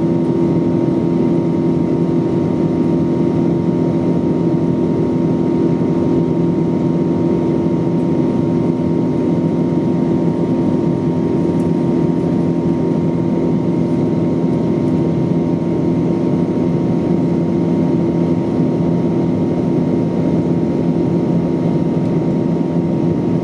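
Boeing 777-200 jet engine and airflow noise inside the passenger cabin in flight: a loud, steady drone with constant low hums and a thin higher tone, unchanging throughout.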